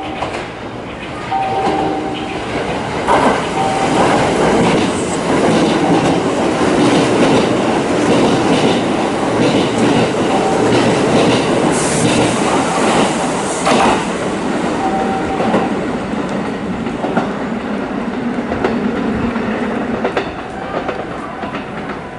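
Kintetsu electric train running on the rails, with a steady rumble and the repeated clickety-clack of wheels passing over rail joints. It is loudest from about three seconds in and eases off near the end.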